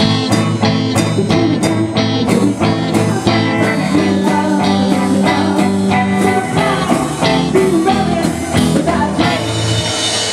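Live rock band playing: electric guitars, bass and drum kit keeping a steady beat, with a woman singing over them.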